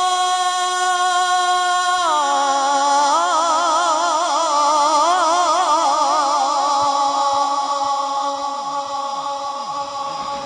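Male Quran reciter's voice, amplified through a microphone, holding one long melodic note without words. The note is steady for about two seconds, then drops in pitch into a wavering, ornamented melisma that slowly fades.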